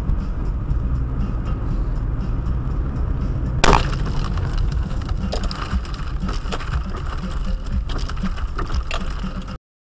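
Steady road and engine rumble heard from inside a moving car; a little under four seconds in, a single loud, sharp crack as an object slams into the windshield and shatters the laminated glass into a web of cracks. Scattered short clicks and crackles follow, and the sound cuts off suddenly near the end.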